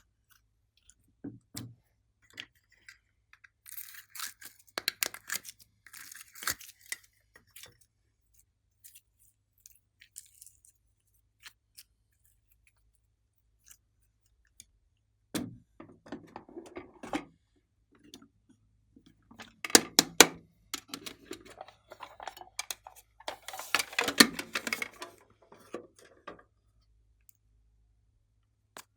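Hands working glossy slime: runs of sticky crackling, clicking and squelching with quiet gaps between, the busiest stretch in the second half.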